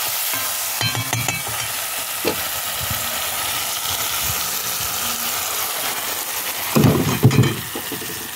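Cashew apple and saltfish stew sizzling in a cast-iron pot over charcoal, stirred with a metal spoon that scrapes the pot. There is a steady hiss, with a few clatters about a second in and louder knocks of the spoon near the end.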